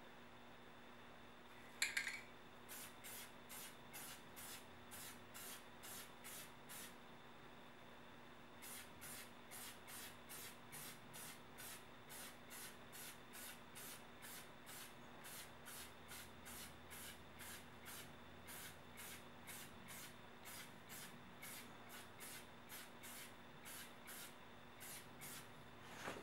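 Aerosol spray-paint can sprayed in short, quick bursts of hiss, about two a second, with a short pause around seven seconds in. A single sharp click comes just before the spraying starts.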